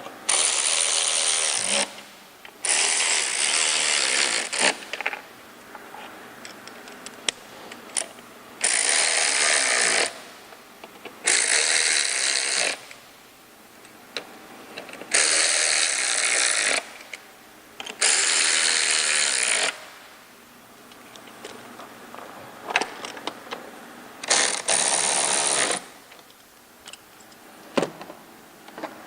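A cordless power tool runs bolts into the intake plenum in seven short bursts of one to two seconds each, with clicks of handling between bursts.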